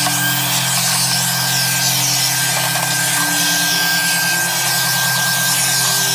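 Shop vacuum running with a steady whine, its hose sucking up wood shavings and sawdust from a planer thicknesser's outfeed tray and the bench.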